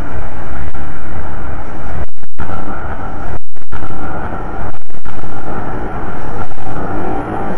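Dense, loud harsh-noise texture from an experimental noise piece, heaviest in the bass. It is cut by a few sudden brief dropouts to silence, around two and three and a half seconds in.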